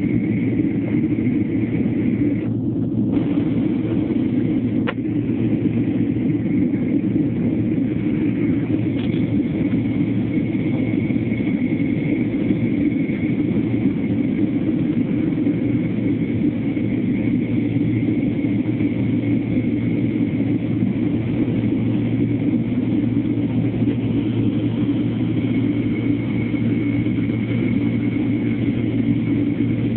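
Airliner cabin noise: the jet engines and airflow make a steady rumble heard from inside the cabin, with a faint steady high whine above it. A single small click sounds about five seconds in.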